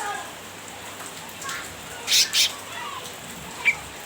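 Cucak ranting, a bulbul, giving short harsh chattering calls. There are two loud bursts about two seconds in and a single brief chirp near the end, over a steady background hiss.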